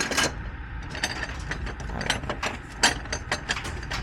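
A run of rapid, irregular mechanical clicks and rattles.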